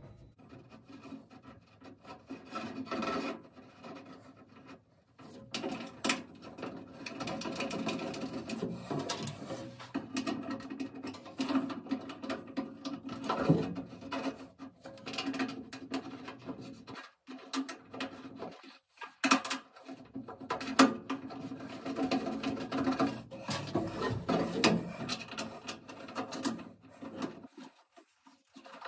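Screws being threaded by hand into the exhaust-port mounting plate on a CO2 laser's sheet-metal cabinet: rubbing and scraping of fingers and parts, with many small irregular clicks and a couple of short pauses.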